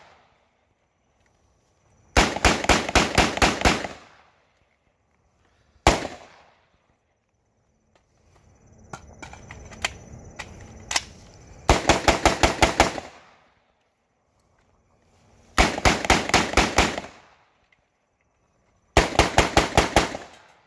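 M16A4 rifle firing 5.56 mm POF rounds in four quick strings of about six to eight shots each, roughly six shots a second, with one single shot between the first two strings. Between strings there is a stretch of lower noise with a few sharp clicks.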